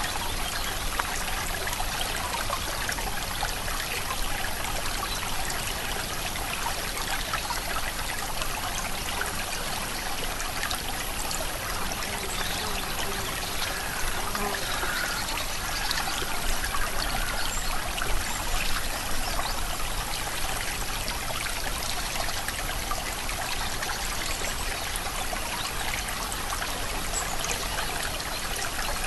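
Steady rush of running water, like a stream, holding an even level throughout.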